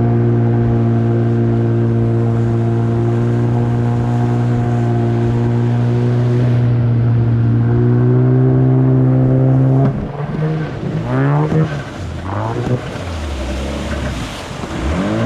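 A Yamaha 30 two-stroke outboard driving a jet unit, running steadily at cruising speed. About ten seconds in it quietens and its pitch swings up and down several times, as the throttle is eased and blipped.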